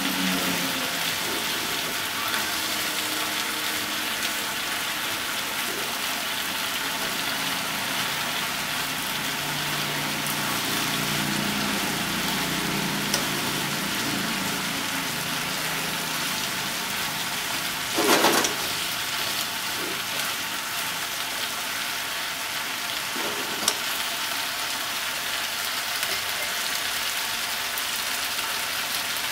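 Pork, potatoes, carrots and onion sizzling steadily as they are stir-fried in a pot and turned with wooden chopsticks, with a loud knock about eighteen seconds in and a few lighter clicks.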